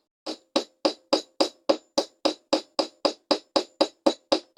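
Small hammer peening the pins of a lockback folding knife against a steel sledgehammer head used as an anvil: even, rapid strikes, about three to four a second, each with a short metallic ring. The pins are being hammered tighter to take out blade play.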